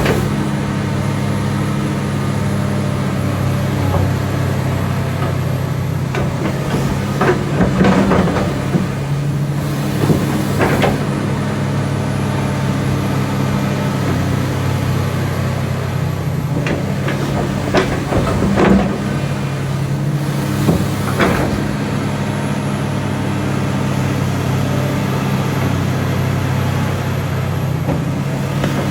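Komatsu PC360-8MO excavator's diesel engine running steadily. Short metallic clanks and knocks come in small clusters: about a quarter of the way in, again past the middle, and once near the end.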